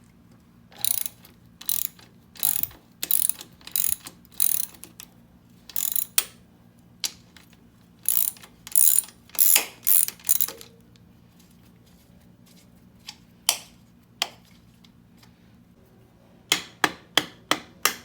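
Hand ratchet wrench cranked in short strokes: a dozen or so separate bursts of clicking with pauses between them, then a quick run of strokes near the end, as bolts are backed out during a dirt bike teardown.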